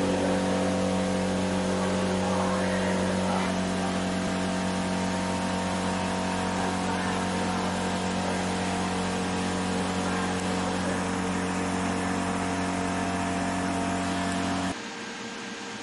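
A 20W fiber laser marking machine running while its laser engraves a logo onto a plastic ear tag: a steady buzzing hum with several steady tones. It cuts off suddenly near the end, leaving a quieter steady hiss.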